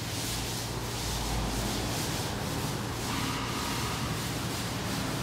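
Chalkboard eraser rubbing across a chalkboard in repeated back-and-forth strokes, wiping off chalk drawings.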